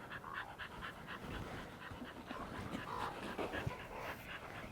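A dog panting fast and rhythmically, several breaths a second, fairly faint.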